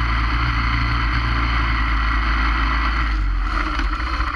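Motorcycle engine running at a steady riding speed, with wind rushing over the bike-mounted camera. About three seconds in, the engine note changes and eases off slightly.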